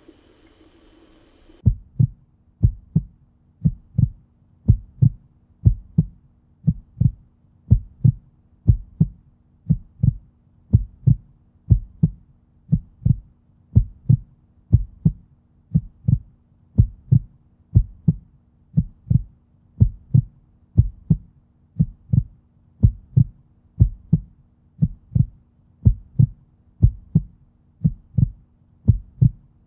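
Heartbeat-like sound effect: regular low thumps in a steady pulse that begins about two seconds in, over a faint steady hum.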